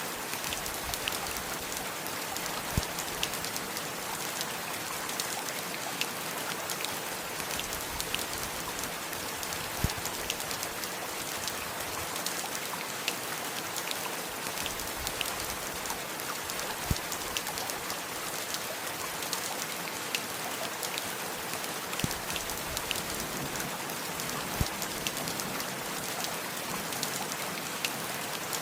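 Steady rain falling, with many individual drops ticking close by and a louder single drop every several seconds.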